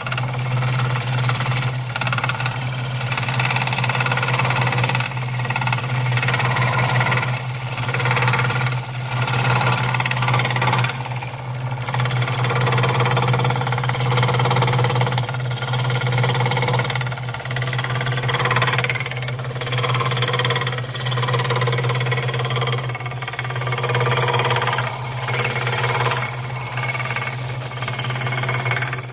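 Electric scroll saw running steadily, its reciprocating blade cutting through a small block of wood, with a constant low motor hum under the rasp of the cut.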